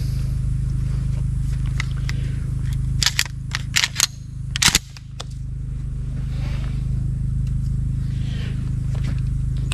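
Remington 870 Express Magnum pump-action 12-gauge shotgun being loaded and handled: a quick cluster of sharp metallic clicks and clacks about three to five seconds in, over a steady low rumble. No shot is fired.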